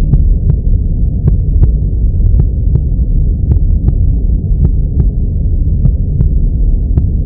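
A loud, muffled low rumble with faint, sharp clicks scattered through it, about two or three a second.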